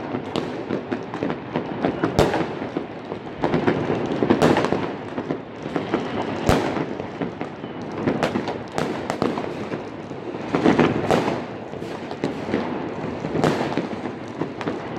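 Fireworks rockets and firecrackers going off all around at once: a continuous crackle with sharp bangs every second or two, some coming in quick clusters.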